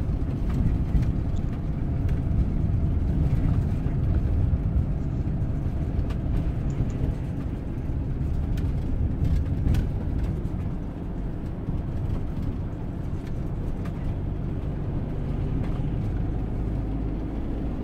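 Steady road and engine rumble of a motorhome driving on an open road, heard inside the cab, with a few faint rattles.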